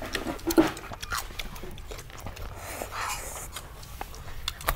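People chewing and biting into grilled pork intestines and raw vegetables: a scattered run of sharp crunches and mouth clicks.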